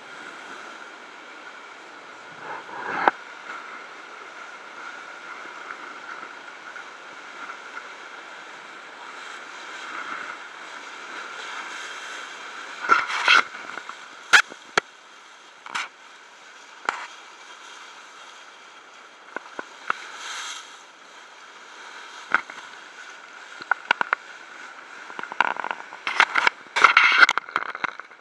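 Sea water rushing and splashing past the bow of a sailing ship under way, with a steady rushing noise and scattered sharp knocks. The knocks come in clusters about halfway through and again near the end.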